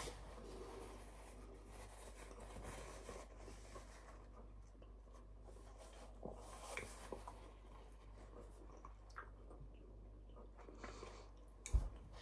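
Quiet sounds of a person eating: faint chewing, and the soft rustle of a paper tissue wiped across the mouth, with a few small clicks over a low steady room hum.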